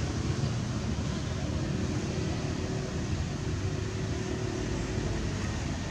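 Steady low rumble and hiss of outdoor background noise, with a faint held hum through the middle.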